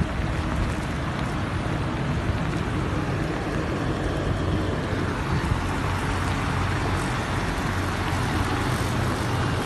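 Steady rush of heavy rain and floodwater mixed with the low hum of vehicle engines driving through a flooded road.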